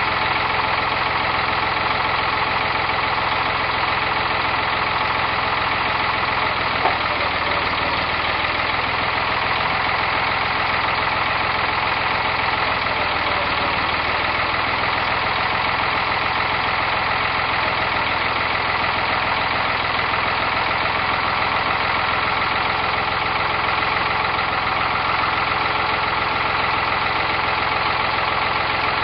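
Tractor engine running steadily, with one short knock about seven seconds in.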